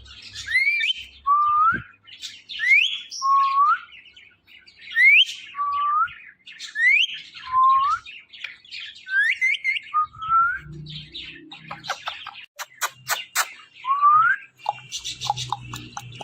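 Parrot, a ringneck parakeet, calling over and over: a high rising note followed by a lower rising note, about every two seconds, six times. A quick run of sharp clicks comes in between the last two calls.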